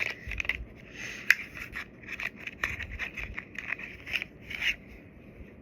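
A small product box being handled and opened by hand: a run of scrapes, rubs and small clicks of packaging against fingers.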